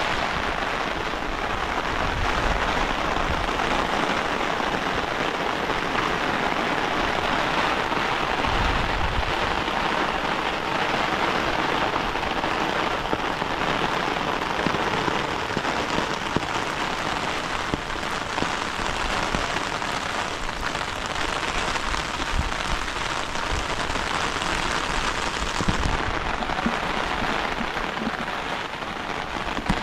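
Heavy rain falling steadily, an even hiss of rain on surfaces, with a low rumble coming in briefly a few times.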